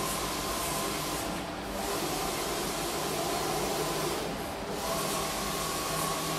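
Steady hiss of background machinery, with a faint hum under it.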